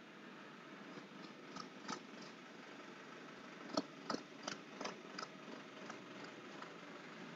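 Light scattered clicks and taps of small tools and a phone's plastic frame being handled on a repair bench, most of them about four to five seconds in, over a faint steady hiss.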